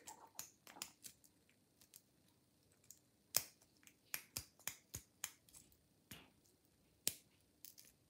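Half-diamond lock pick clicking against the pin tumblers of a Yale No.24 laminated cylinder padlock held under tension: faint, uneven metallic clicks, the sharpest about three and a half and about seven seconds in.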